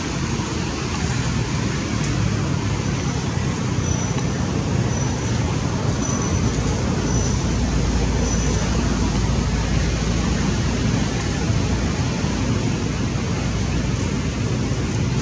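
Steady rumbling outdoor noise at an even level, heaviest in the low end, with a few faint high chirps a few seconds in.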